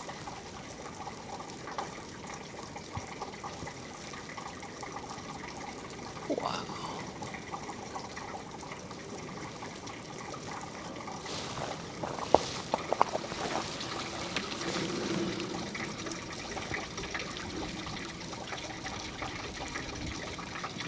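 Water trickling steadily at a frozen waterfall, with a few sharp clicks about twelve seconds in.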